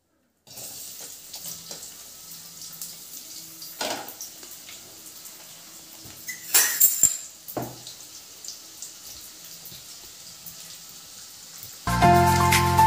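Sliced onions sizzling in hot oil in a kadai, the sizzle starting suddenly about half a second in and running steadily. A few knocks and clatters of a utensil against the pan stand out, the loudest a short cluster around the middle; music comes in near the end.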